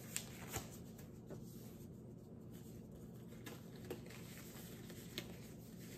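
Disposable exam gloves being pulled onto the hands: a faint rustle of the thin glove material with a few brief soft clicks.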